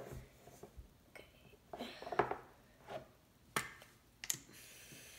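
Sharp plastic clicks and knocks as the cap of a can of shaving cream is pried off by hand, the loudest about two, three and a half and four seconds in, followed by a faint steady hiss near the end.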